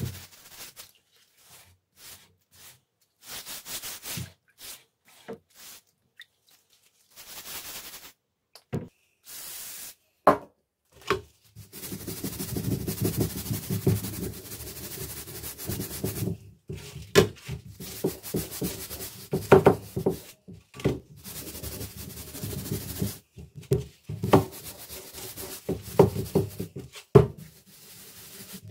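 A rusty steel splitting-maul head being scrubbed with a scouring pad: short, separate scrubbing strokes in a tub of rust-remover liquid, then from about twelve seconds in a near-continuous rubbing on a metal tray. Several sharp knocks break the rubbing.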